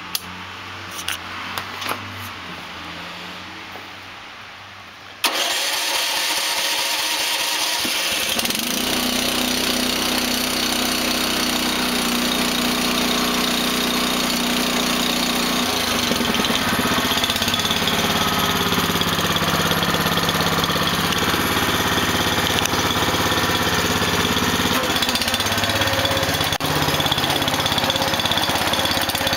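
A few clicks and knocks, then about five seconds in a small gasoline engine starts and keeps running steadily, its pitch shifting about halfway through.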